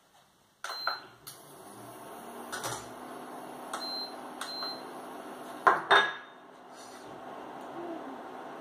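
A plate and a metal whisk clinking against a steel saucepan as butter goes in to melt, with two loud clanks about six seconds in. Under it a steady hum starts abruptly under a second in: the induction hob switched on.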